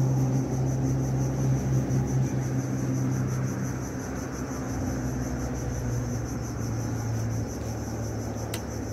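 Insects buzzing steadily at a high pitch over a louder, steady low drone, with one sharp click near the end.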